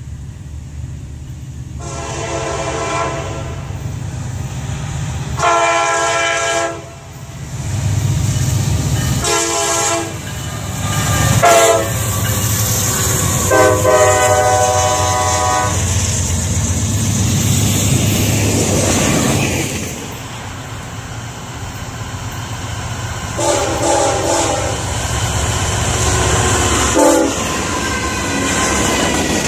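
Diesel freight locomotives sounding their horns in a series of blasts, some long and some short, over the steady low rumble of the engines and the wheels rolling on the rails. The train passes close by, and two more horn blasts come near the end.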